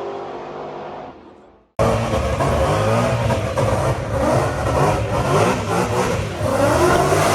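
A car engine running steadily fades out; then, after a sudden cut, a loud car engine revs hard, its pitch rising repeatedly as it accelerates.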